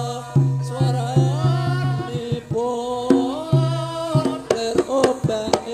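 Live Javanese stage-band music: a singer's gliding, ornamented melody over a steady pattern of deep, ringing hand-drum strokes.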